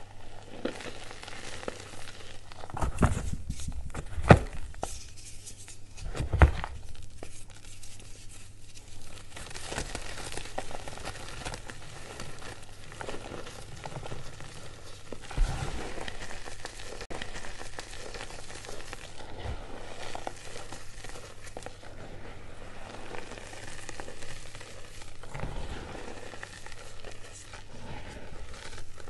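Hands crushing and crumbling lumps of reformed gym chalk in a tray of loose chalk powder: a continuous crunchy crackle as lumps break up and powder falls from the hands. A few louder thumps come in the first seven seconds and once about halfway through.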